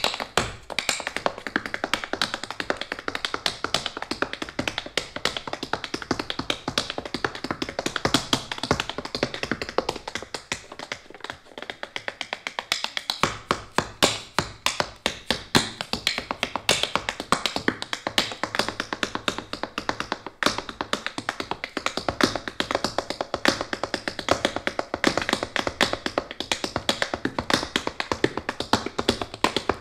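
Fast, dense tap dancing: metal taps on tap shoes striking a wooden stage floor in rapid rhythmic runs, over a live jazz band of drums, double bass and keyboard. The bass drops away for a few seconds near the middle and then comes back in.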